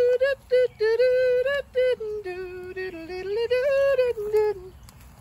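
A single high voice singing a short wordless-sounding intro tune, with no instruments: quick clipped notes at first, then a few longer held notes that stop about a second before the end.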